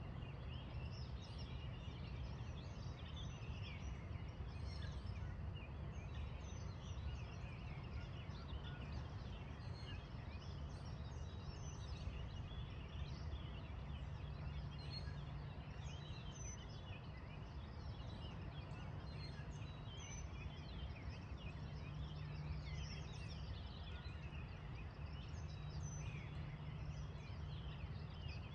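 Morning chorus of many birds chirping and singing, over a steady low rumble.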